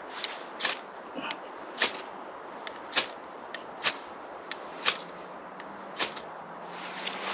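Ferrocerium fire steel struck with a scraper about six times, roughly once a second, each strike a short sharp rasp as it throws sparks onto tinder in a small wood stove, with a softer rushing noise rising near the end.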